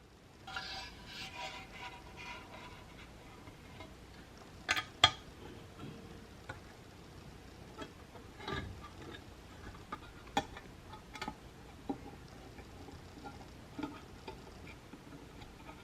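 Light handling noise with scattered small, sharp clicks and taps of hard objects, the loudest a quick pair about five seconds in.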